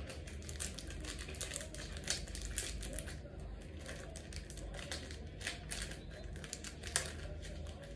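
Football trading cards being handled and shuffled in the hands: faint, irregular rustling and clicking of card stock, over a low steady hum.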